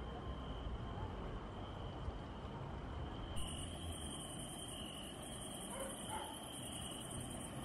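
Outdoor evening ambience: a low rumble of wind on the microphone and a steady high insect trill, with a dog barking faintly in the distance a couple of times in the second half. The background changes abruptly a little over three seconds in.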